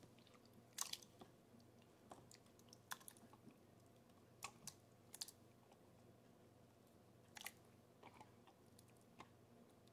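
Faint, scattered wet clicks and smacks: a silicone spatula scrapes crushed pineapple out of a plastic chopper bowl, and the fruit drops into the sauce in a glass measuring cup.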